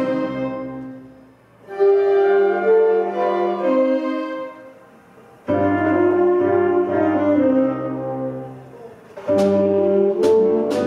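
Ensemble of violins, saxophones and brass playing sustained chords in phrases: the sound fades away about a second in, comes back just before two seconds, fades again and returns twice more, with sharp accented chords near the end.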